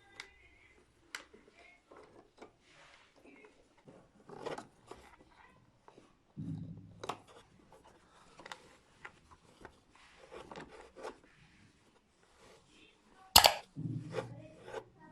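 Hands working with materials: scattered rustling and light clicks, a few dull low knocks, and one sharp loud click near the end, which is the loudest sound.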